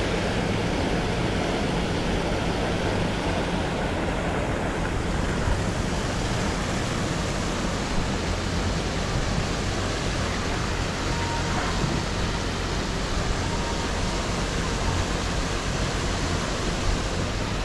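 Pond aerator churning the water: a steady rushing, splashing wash that does not let up.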